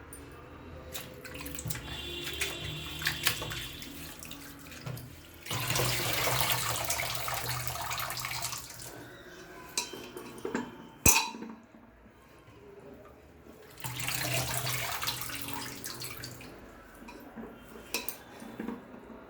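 Tap water running in two spells of a few seconds each while chickpea greens are rinsed in a vessel, with knocks and clinks of utensils between and one sharp clank about halfway through.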